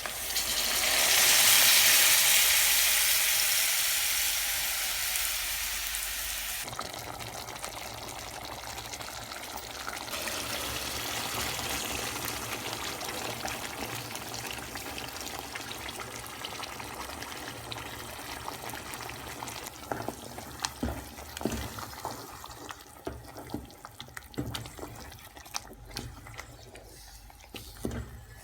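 Food hitting hot cooking oil in a pot: a loud sizzle that flares up at once and slowly dies down, then steadier frying. Later come repeated sharp knocks of a spoon stirring against the pot.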